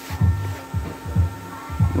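Bass-heavy music played through a subwoofer driven by a Peavey 1.3k power amp: deep kick-drum thumps about every half second with a low bass line between them. A steady hum runs underneath.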